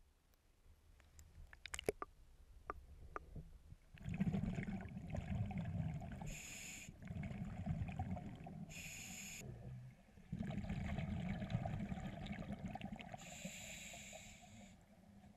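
Scuba breathing through a regulator, heard underwater: rumbling exhaled bubbles from about four seconds in, broken by three short high-pitched hisses. Before that, only a few faint clicks.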